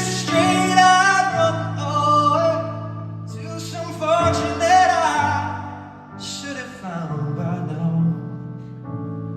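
Live pop song: a singer's wordless, sliding vocal lines over steady held chords, dropping back to the sustained accompaniment alone in the last few seconds.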